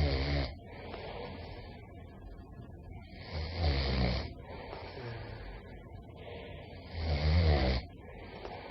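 A person snoring: three loud snores about three and a half seconds apart, each followed by a quieter breathy sound.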